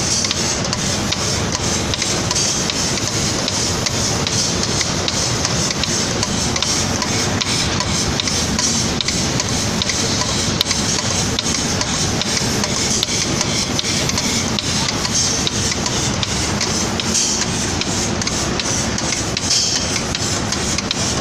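Automatic paint spraying machine running: a steady air hiss with a fast, continuous mechanical clatter.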